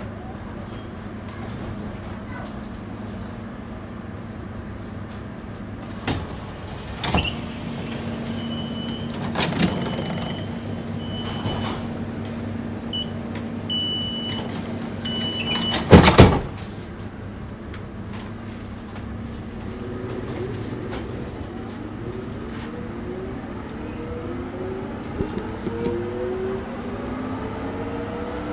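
DUEWAG B80D light-rail car standing at a stop with a steady electrical hum. A high beeping signal sounds on and off for several seconds before the doors shut with a loud thump. About three seconds later the traction motors set up a rising whine as the car pulls away.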